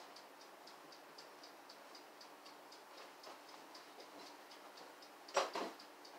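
Fast, steady ticking of a clockwork timer, about four ticks a second. Two quick knocks sound near the end.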